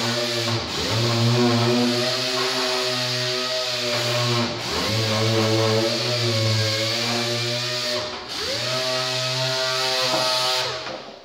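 Air-powered sander whining steadily against a car's fender. Its pitch sags and climbs back three times as it is pressed and eased off the panel, and it stops just before the end.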